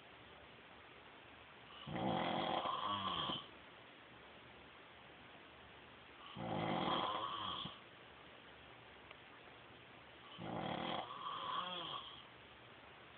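A man snoring: three long snores about four seconds apart, each lasting about a second and a half.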